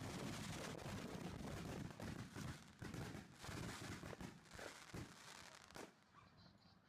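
Consumer class C fireworks going off in a dense rapid crackle, which breaks up after about two seconds into scattered sharp pops and cracks and dies away near the end.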